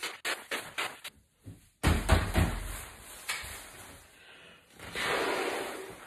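Large balloon being handled: a quick run of short rubbing squeaks, about three a second, then a sudden heavy thump about two seconds in. Near the end comes a long breath blown into the balloon's neck.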